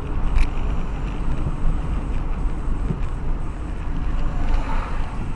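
Vehicle noise with wind on the microphone: a steady low rumble under a rushing hiss.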